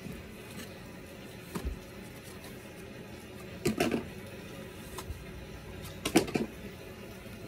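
Handling noise from a pair of leather work boots being set down on carpet and arranged: a soft thump, then two short bursts of rustling and clicking as the boots and laces are handled.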